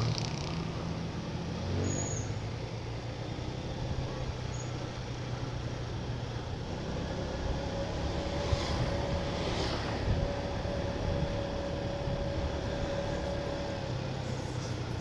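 Engine and road noise of a moving vehicle, heard from inside it: a steady low hum. A faint steady whine joins about halfway through and fades out near the end.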